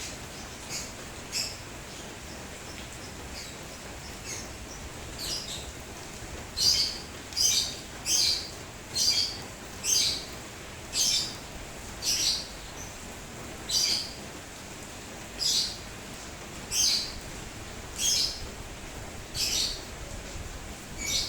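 A bird repeating short, high chirps at a steady pace of about one a second, faint at first and louder after a few seconds, over a steady hiss of rain.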